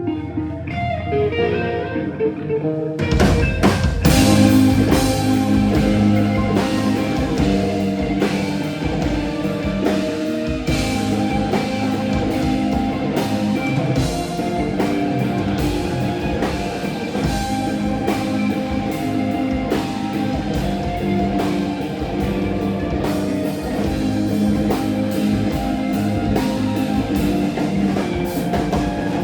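Rock band playing an instrumental passage on electric guitar, bass and drum kit: a quieter guitar opening, then the full band with drums crashes in about three seconds in and plays on.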